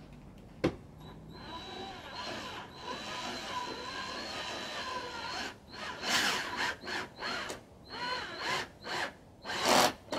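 Power drill driving a self-tapping screw through a plastic diffuser into a car's rear bumper: a steady motor whine for a few seconds, then a series of short bursts as the screw is run home.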